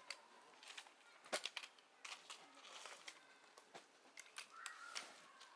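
Faint, scattered small clicks and taps, a dozen or so, irregularly spaced, with the sharpest few about a second and a half in.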